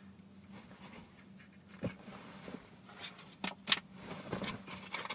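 Duvet and bedding rustling as someone shifts and sits up in bed: a soft thump about two seconds in, then quick rustles and scrapes of fabric that grow louder towards the end, over a faint steady hum.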